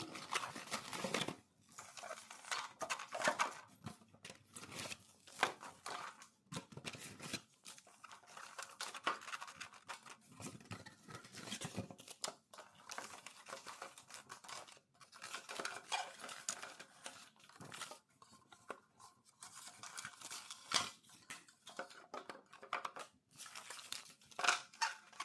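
Paper and plastic packaging rustling and tearing, with small irregular clicks and knocks, as tea packets are handled and put into a plastic tea holder.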